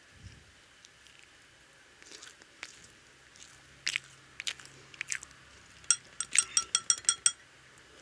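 Close-up eating of dim toast, bread coated in egg and fried: scattered bites and chewing, then a quick run of about ten sharp clicking mouth sounds over a second and a half, about six seconds in.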